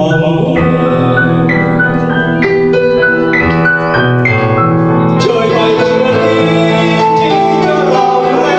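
Piano playing a melodic run of single notes over chords, with a man's singing voice coming in over it about halfway through, amplified through a microphone.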